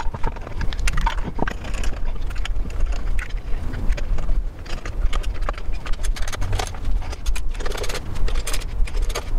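Lug nuts being run onto the wheel studs by hand and with a socket and ratchet: irregular metallic clicks and clinks.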